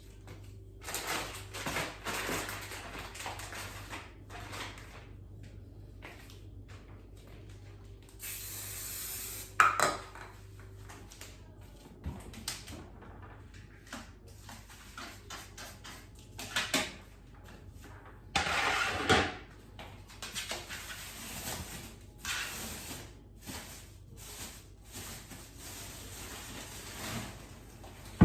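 Kitchen cleaning: dishes and objects clattering and knocking on and off, with a few short hisses about a second long.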